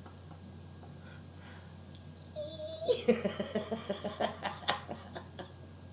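A woman laughing: a quiet start, then from about two and a half seconds in a run of quick, repeated laughs lasting about three seconds.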